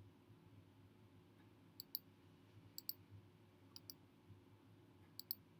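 Computer mouse clicks: four sharp double clicks, each a button press and release, about a second apart starting about two seconds in, as objects are right-clicked and deleted from a menu. A faint steady hum lies underneath.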